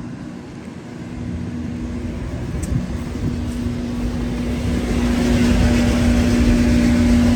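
Motor running with a steady low hum and rumble, growing louder from about halfway through.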